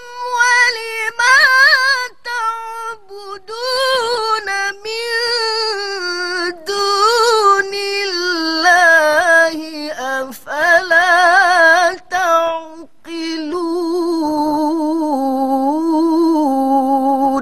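A woman reciting the Quran in the melodic tarannum style, drawing out long ornamented phrases with wavering pitch, broken by short breaths. Her pitch sinks step by step across the passage and the phrase ends just before the close.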